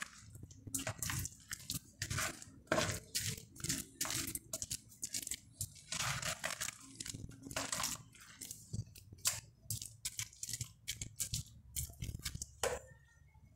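Grated soap shreds soaked in a dark liquid being mixed and kneaded by a gloved hand in a plastic bowl: a run of short, irregular wet strokes.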